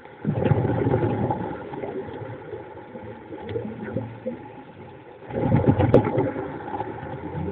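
Muffled underwater noise picked up by a submerged camera, with two loud rushing, rumbling bursts, one near the start and one about five seconds later, each lasting a second or so.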